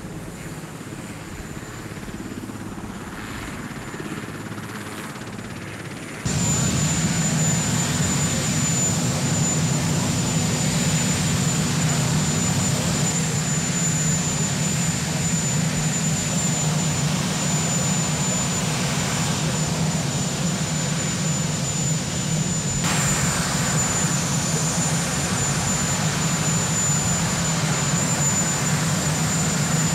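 Marine One, a Sikorsky VH-3D Sea King, running on the ground: steady turbine and rotor noise with a thin high turbine whine over a low drone. It jumps suddenly louder about six seconds in, then holds steady.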